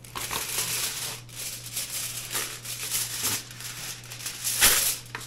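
Sheet of aluminium foil being pulled out and handled, a continuous crinkling rustle with a louder crackle near the end.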